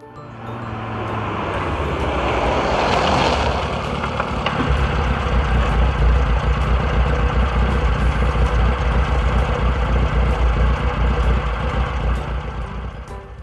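Jeep engine running: the noise builds over the first few seconds, then settles into a steady, deep engine sound that eases off near the end.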